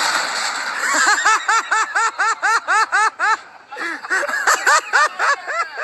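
A person laughing hard in rapid, repeated bursts of about five a second, in two bouts with a short break between them. At the start, a noisy splashing rush fades out about a second in.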